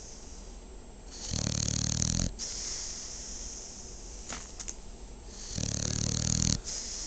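Sleeping dog snoring: two loud snores, each about a second long and roughly four seconds apart, with a steady breathy hiss between them.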